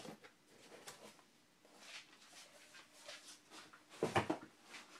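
Faint rustles and light knocks of a cookbook being picked up and handled. About four seconds in comes one short, louder sound.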